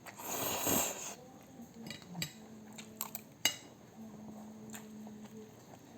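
Close-up eating sounds: a burst of noise about a second long at the start, then a few sharp clinks of cutlery against a plate or bowl.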